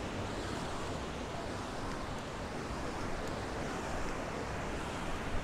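Ocean surf breaking and washing onto a beach, a steady rush of waves.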